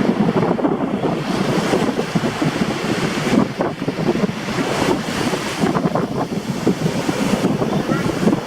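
Rough surf breaking on the shore under strong wind that buffets the microphone.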